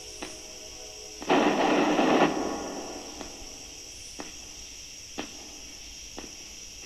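PANABOX spirit box sweeping radio stations: a steady hiss with a faint click about once a second. About a second in comes a loud burst of radio static, lasting about a second before it fades.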